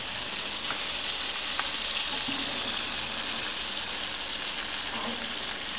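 Steady sizzling hiss of freshly roasted whole chickens in their hot pan juices, with a couple of faint clicks.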